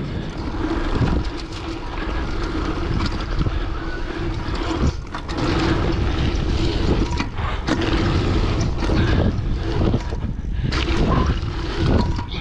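Wind rushing over the microphone, with tyre and drivetrain noise, as a mountain bike is ridden over a line of dirt tabletop jumps. The noise dips briefly a few times.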